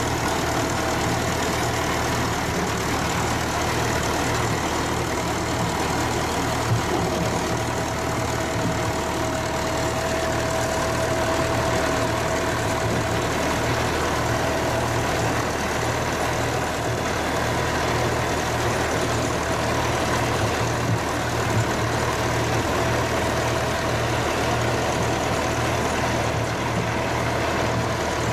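Tractor engine running steadily, driving a pumpkin seed harvester that crushes the pumpkins fed into it. The result is a continuous mechanical drone with a faint steady whine, broken by a couple of brief knocks.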